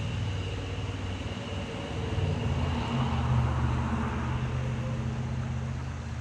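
A steady low engine-like hum with a faint high whine above it.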